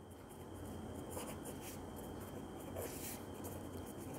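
Pen writing on paper: faint scratching strokes of handwriting, which pick up about a second in, over a low steady hum.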